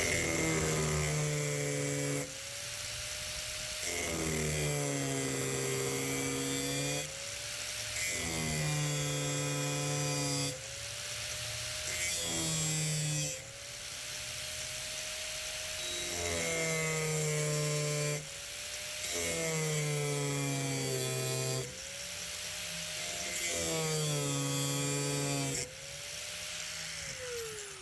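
High-speed rotary tool cutting a slit into thin-walled steel EMT conduit: the motor's whine drops in pitch each time it bites into the metal and climbs back between passes, about nine times over. Near the end it is switched off and winds down.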